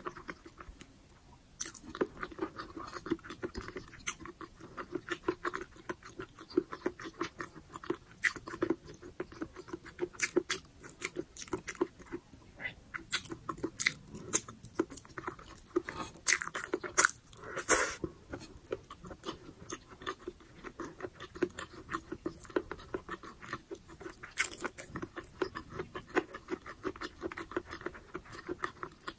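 Close-miked chewing of braised pork humba and rice: many rapid mouth clicks, starting about a second and a half in, with a louder stretch about halfway through.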